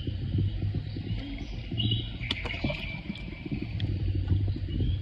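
Water sloshing and rumbling against a phone held half-submerged at the waterline, with birds chirping in the background and a few sharp clicks about halfway through.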